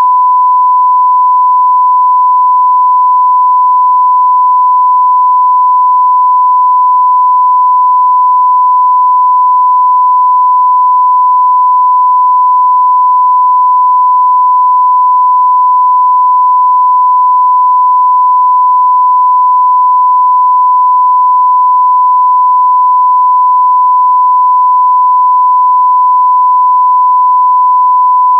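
Censor beep: a single loud, unbroken pure tone at about 1 kHz, held steady without a break.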